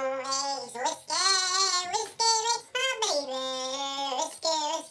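A high voice singing a melody in long held notes, phrases breaking about once a second.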